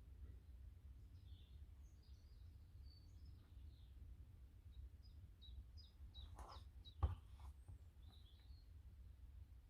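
Near silence with a low hum and faint, short bird chirps, and one sharp click about seven seconds in.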